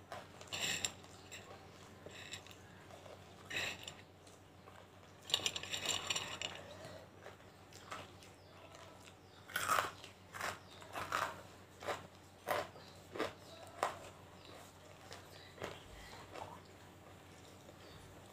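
Hard white banslochan (tabashir, bamboo silica) pieces being bitten and crunched between the teeth close to the microphone. The crunches come irregularly, with a dense burst of crunching about five seconds in, then a run of single sharp crunches that thins out near the end.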